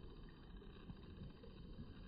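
Near silence: faint, steady low rumble of outdoor background noise.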